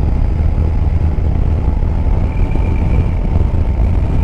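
Yamaha Tracer 9 GT's three-cylinder engine running at steady road speed, heard on board under a heavy, even rumble of riding wind, with a thin steady whine over it.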